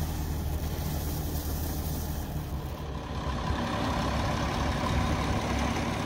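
Case MX 110 tractor's diesel engine running steadily, growing a little louder in the second half.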